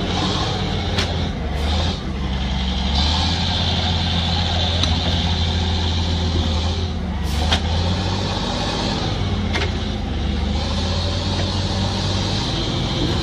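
Heavy diesel engine running steadily, with a high hiss over it and a few sharp knocks.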